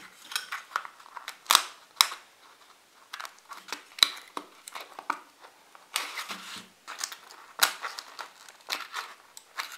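Hands handling a loudspeaker under repair: irregular crinkling, rubbing and light clicks from the paper cone, voice coil and its lead wires as the coil is test-fitted into the magnet gap, with a few sharper clicks scattered through.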